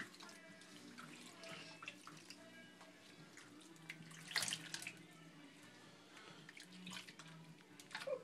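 Water sloshing and splashing in a bathroom sink as hands wash a guinea pig, with a louder splash about four seconds in and another near the end.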